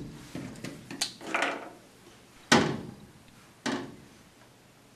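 Handling noises on a pickup truck bed: four short clacks and scrapes, about a second apart, as a tape measure and tools are handled and set down on the bed floor.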